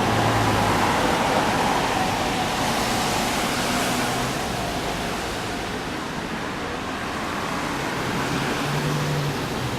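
Nagano Shinkansen E2 series train running alongside while slowing for its stop: a steady, even rush of train noise with a faint whine that slides lower in the first seconds and eases off slightly through the middle.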